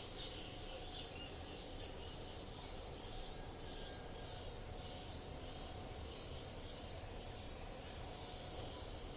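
A chorus of insects buzzing high and steadily, pulsing in an even rhythm of about two swells a second.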